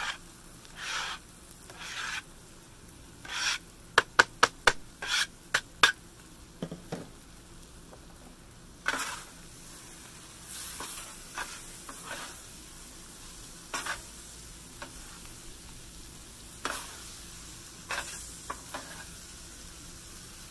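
Noodles, chicken and cabbage sizzling on a Blackstone flat-top griddle while metal scrapers scrape across the steel and clack against it, tossing and mixing the food. A quick run of sharp clacks comes about four to six seconds in.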